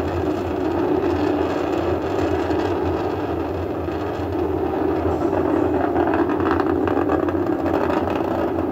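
Steady rumbling noise of an Atlas V rocket's engines during ascent, even in level with no breaks.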